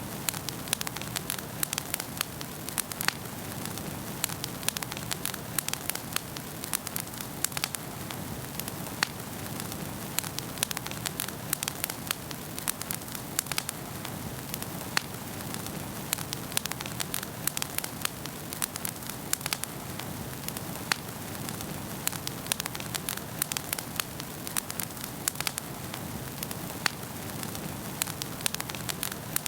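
Wood fire burning in a fireplace: a steady low rush of flames with frequent irregular sharp crackles and pops from the burning logs.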